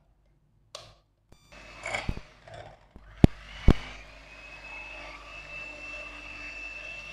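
Electric hand mixer running steadily with a thin high whine as its beaters whip eggs in a glass bowl. A few sharp clicks and knocks come before the motor settles into its steady run about four seconds in.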